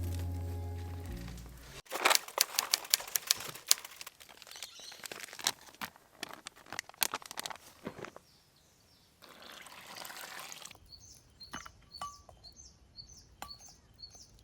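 Background music fades out over the first two seconds, followed by several seconds of sharp, irregular cracks and clicks. Near the end a small bird chirps repeatedly in short, high, falling notes.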